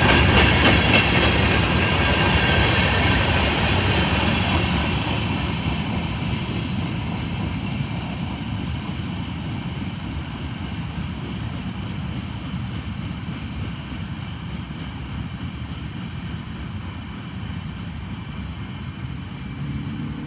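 A train rolling along the rails, its steady wheel rumble with faint high ringing tones gradually fading as it moves away.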